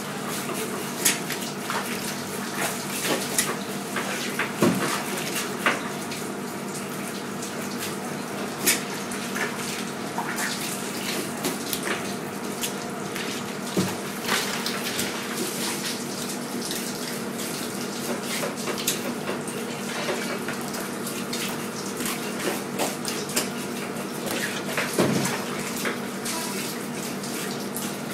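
Flathead being filleted by hand on a plastic cutting board: scattered sharp clicks and taps of the knife and the fish against the board, over a steady rush of running water and a low steady hum.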